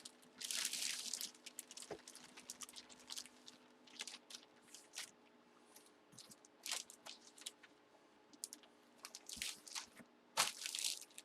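Plastic packaging crinkling and rustling in irregular bursts as items are handled and unwrapped.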